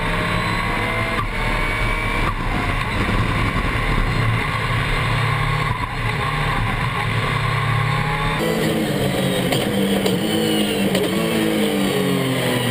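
Dacia Duster No Limit race car's engine at full throttle, its note broken by quick gear changes in the first few seconds. About eight seconds in the sound cuts to the cockpit, where the engine note climbs and drops in pitch as the driver works the throttle and gears.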